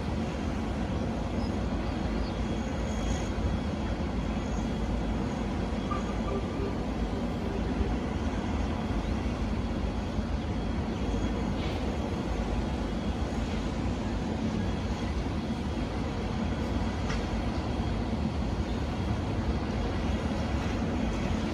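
Steady low rumble of heavy machinery running continuously, with a few faint knocks.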